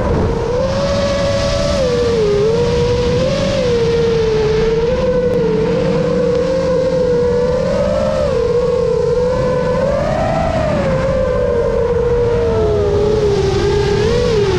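Electric motor and propeller of a radio-controlled model aircraft, a steady whine near one pitch that keeps rising and falling a little with the throttle. Wind on the airborne microphone adds a rough low rumble.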